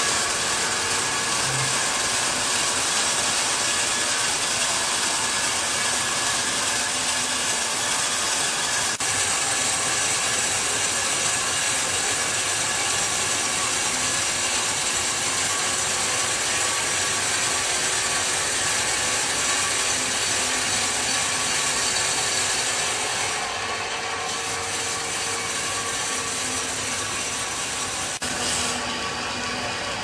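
Large band sawmill cutting lengthwise through a thick log: the band blade runs through the wood with a steady, dense rasping noise over the hum of the drive motor and wheels. A little over two-thirds of the way in, the sound steps down slightly and stays that way.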